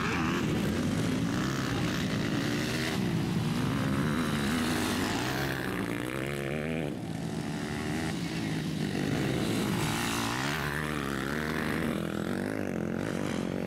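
MX2 motocross bike engines revving hard and dropping back, their pitch rising and falling repeatedly as the riders accelerate out of corners and over jumps.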